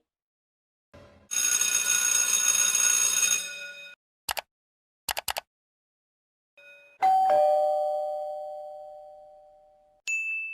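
A string of separate sound effects: a noisy burst with ringing tones and a few short clicks, then a two-tone doorbell ding-dong about seven seconds in that rings out slowly, and a short high ding near the end.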